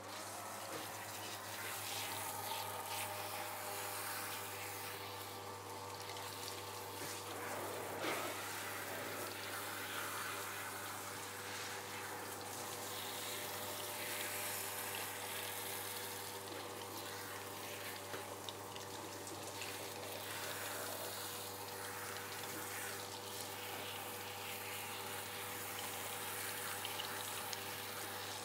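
Handheld shower head spraying water through a small dog's coat in a grooming bath, rinsing out conditioner: a steady hiss of running water with a low steady hum beneath it.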